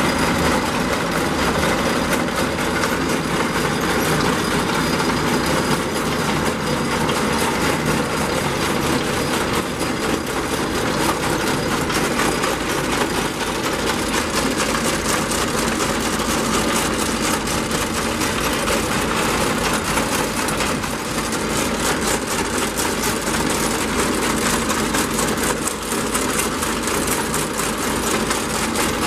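Machinery running steadily: an engine hum with a rapid, even rattling clatter.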